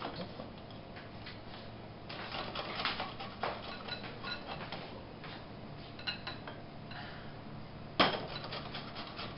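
Pickled gherkins being grated on a metal box grater: irregular rasping strokes with light metallic clicks. A single sharp knock about eight seconds in is the loudest sound.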